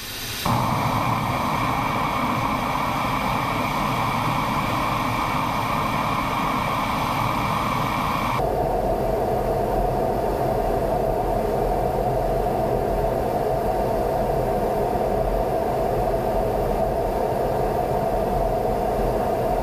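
Steady cockpit noise inside an F-15E Strike Eagle in flight: the rush of engines and airflow through the canopy with a constant hum. Its tone changes abruptly about eight seconds in, at a cut to another onboard camera.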